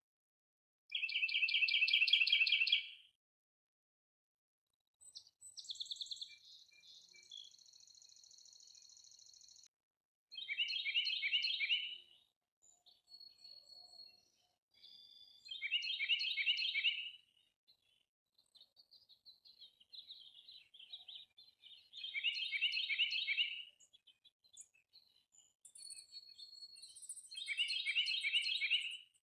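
Songbirds singing: one bird repeats a loud, short trilled phrase five times, about every five to six seconds, while other birds give fainter high calls and whistles in between.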